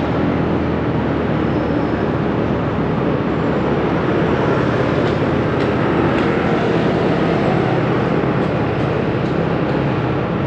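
Steady traffic and road noise while travelling along a busy city street: a continuous vehicle rumble with no distinct events.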